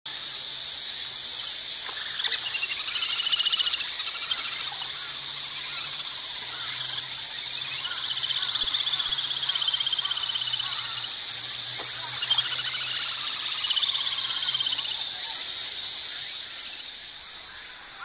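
Little grebes calling: a high, rapid trilling, loudest from about three to seven seconds in, with the chicks' calls mixed in, over a steady high drone of cicadas.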